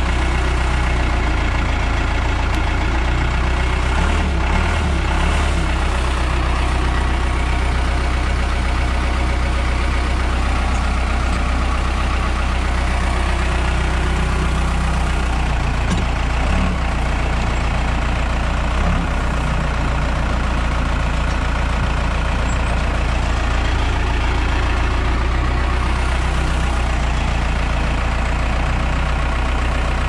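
Case 580 Super L backhoe's diesel engine running steadily at idle while its freshly refilled transmission is worked in gear to warm up, with brief changes in the engine note about four and sixteen seconds in.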